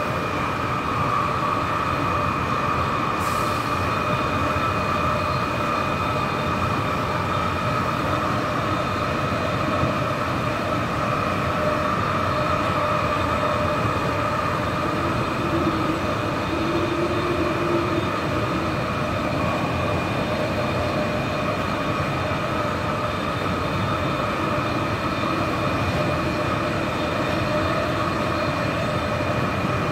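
AirTrain JFK car running at speed, heard from inside the car: a steady rumble of wheels on the guideway under a steady high whine from its linear induction motors.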